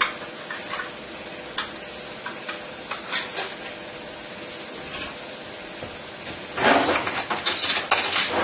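Onions, leek and diced ham frying quietly in a pan, over a steady faint hum. Scattered light clicks and taps of kitchen handling run throughout, and near the end there is a burst of clattering and clinking of kitchen utensils lasting about a second and a half.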